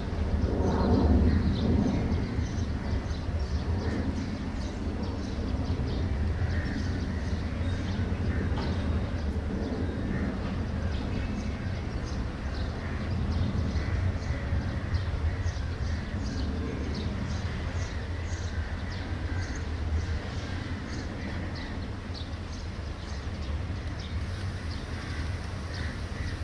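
Steady low rumble of a distant Boeing 767's jet engines passing overhead, with frequent short, high bird chirps over it.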